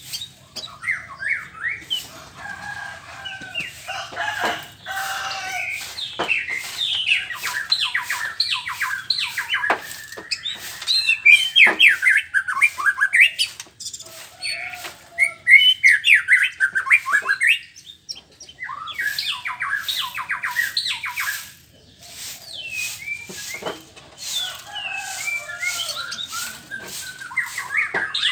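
White-rumped shama singing a long, varied song of rapid down-slurred whistles and chattering phrases in bursts, with short pauses between them.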